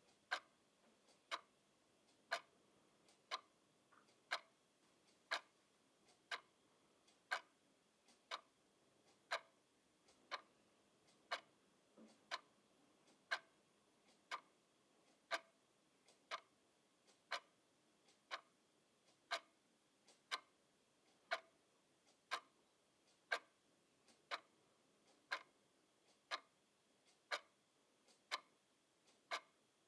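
Clock ticking steadily, about one tick a second, each tick a short sharp click.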